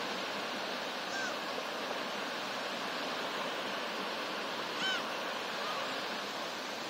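Gentle surf washing on the shore as a steady hiss, with two short calls from black-tailed gulls: a faint one about a second in and a louder one about five seconds in.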